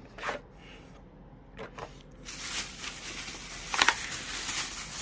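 Thin plastic shopping bag rustling and crinkling as a hand rummages inside it, starting about two seconds in and loudest near the end, after a few soft handling sounds.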